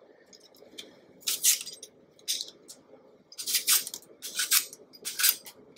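A handheld vegetable peeler scraping the skin off a Granny Smith apple in short strokes, five or six of them, coming quicker in the second half.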